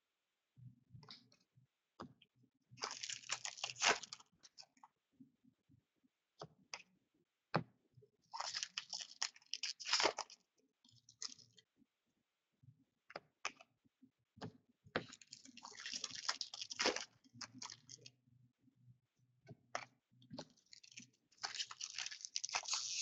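Hockey card packs from a box of 2015/16 Upper Deck Series 2 being torn open, their wrappers crinkling in four bursts a few seconds apart, with short clicks of card handling in between.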